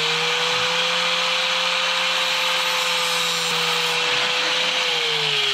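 Corded rotary tool with a cutoff wheel cutting through 3/16-inch steel lift cable: a steady high motor whine over a gritty grinding hiss. Near the end the whine drops in pitch as the tool slows.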